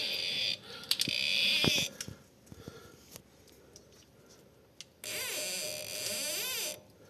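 High-pitched rubber-on-metal squealing from the inner CV joint of a Toyota Fortuner's left front driveshaft. It comes in three bursts: two short ones close together at the start, then a longer one with a wavering pitch from about five seconds in, with a few light clicks in the quiet gap between. The owner puts the squeak down most likely to a seal between the inner CV joint and its housing.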